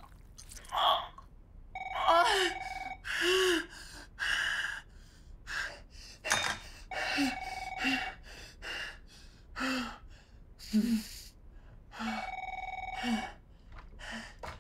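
A man gasping in ragged breaths with short strained cries, half sobbing, half laughing. Meanwhile a telephone rings in short bursts three times, about five seconds apart.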